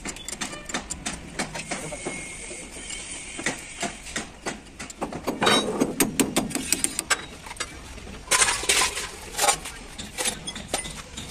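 Hand tools clinking and a hammer striking the steel of a truck's leaf-spring shackle. A run of quick light clicks comes first, then louder blows in the middle and again about three-quarters of the way through.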